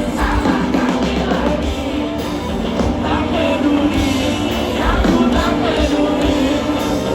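Live band playing a pop-rock song with a singer, amplified and loud.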